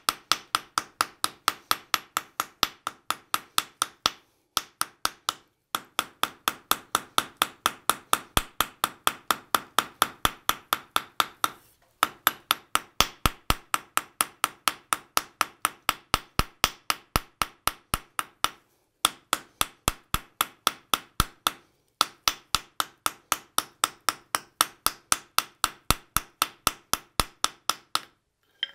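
Small cross-peen hammer striking the edges of a red-hot 1/8-inch sheet-metal butterfly on an anvil, in quick even blows about four a second. The blows come in runs with brief pauses between them, and each one rings.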